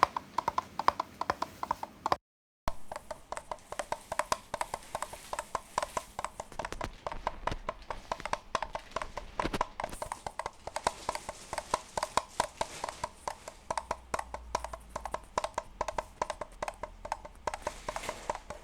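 Homemade horse-hoof sound effect: a rapid, steady run of hollow clip-clop knocks like hooves trotting, with a brief dead-silent break a little after two seconds in.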